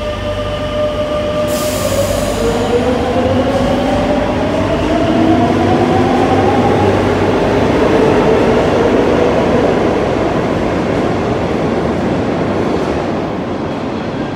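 Madrid Metro Line 10 train pulling out of the station. Its traction motors whine in several tones that rise steadily in pitch as it accelerates, over the rumble of the wheels on the rails. A short hiss comes about a second and a half in.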